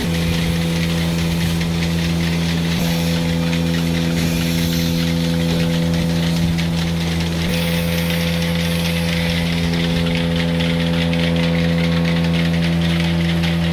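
Milking machine running: a steady motor hum with a constant hiss over it.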